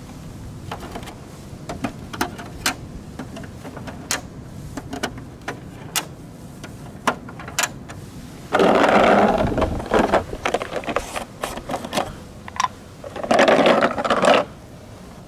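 Plastic toy parts clicking and knocking as they are handled and set down, then plastic balls rattling hard inside a clear plastic bottle in two shaking spells, the second near the end.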